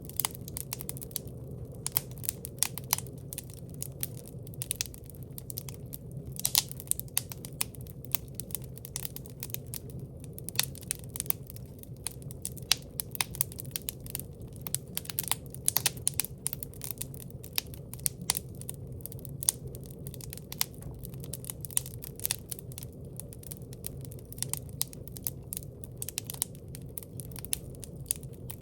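Wood fire in a fireplace crackling, with frequent irregular sharp pops over a low steady background.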